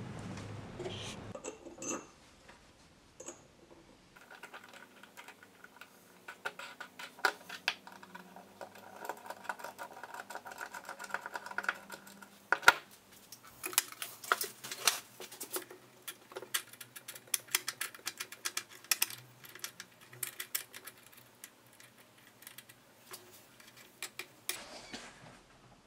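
A spray can hisses briefly at the start. Then small metal parts click and tap as a threaded rod, its T-handle, nuts and a bracket are handled and screwed together by hand, in quick irregular bursts.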